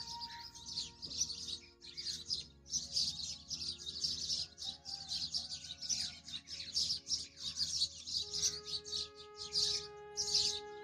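Many small birds chirping rapidly and continuously, over soft background music of long held notes.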